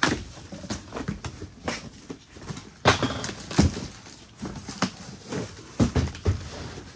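Cardboard boxes and packaging being handled and torn open: rustling, scraping and a few sharp knocks, the loudest about three seconds in and near six seconds.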